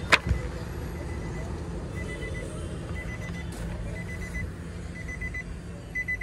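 A sharp latch click as the driver's door of a 2017 Nissan Livina is opened, then from about two seconds in the car's warning chime: short bursts of high beeps repeating about once a second.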